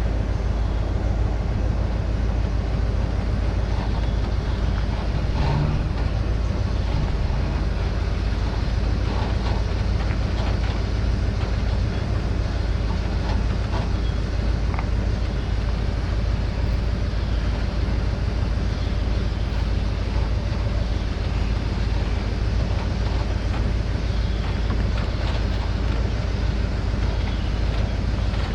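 Ford F350's 460 big-block V8 running at low speed while reversing a boat trailer down a launch ramp: a steady low rumble.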